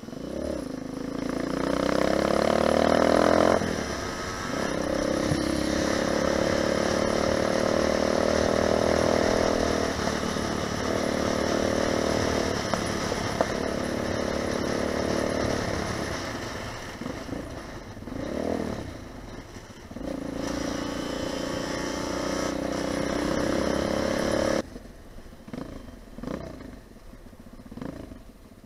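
Lifan 250 four-stroke pit bike engine being ridden hard. The pitch climbs and breaks off at gear changes, holds steady under throttle and eases down, with a couple of quick rev blips. About three-quarters of the way through the throttle shuts suddenly, leaving a much quieter engine with short blips.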